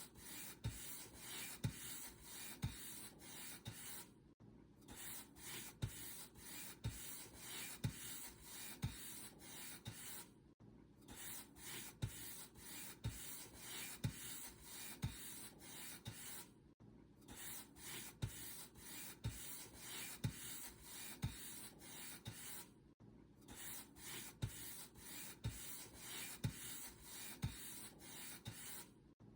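Paint brush bristles stroking back and forth across a surface, about one stroke a second, each with a soft low knock. The strokes break off for a brief pause roughly every six seconds.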